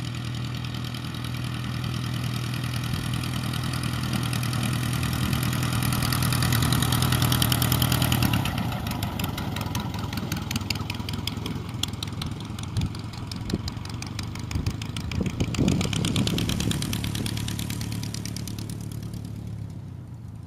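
Pietenpol Air Camper's engine and propeller running at taxi power as the plane taxis past. The sound builds, changes sharply about eight seconds in as it goes by, then fades away near the end.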